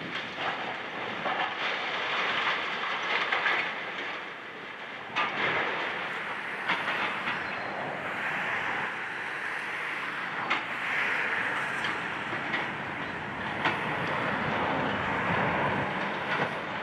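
Hydraulic excavator's demolition grapple tearing through concrete floor slabs. There is a steady clatter of crumbling concrete and falling debris, with a sharp crack every few seconds.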